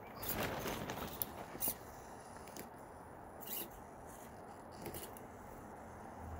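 Micro 1/24-scale RC rock crawler (SCX24-class) crawling over a popsicle-stick course: a rustling scrape near the start, then a few sharp clicks and knocks of its tyres and chassis on the wooden sticks, over a faint high whine.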